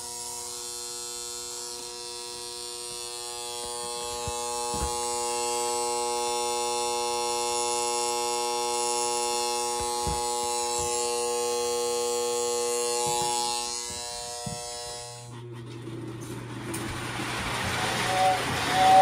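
Steady electric buzz with a strong hum from a powered postwar Lionel toy train set, cutting off suddenly about fifteen seconds in. A toy train then runs on a layout, with a brief whistle hoot near the end.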